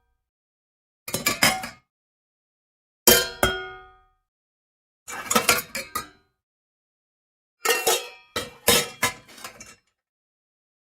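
Metal pots and pans clattering and clanging together with a metallic ring, in four separate bursts: a short one about a second in, a single strong clang with ringing about three seconds in, a rattle about five seconds in, and a longer clatter of several hits near the end.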